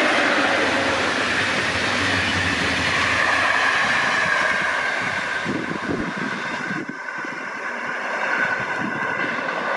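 MÁV-START InterCity passenger coaches rolling past close by, a steady rush of wheels on rail with a run of knocks over rail joints about halfway through. The train then draws away.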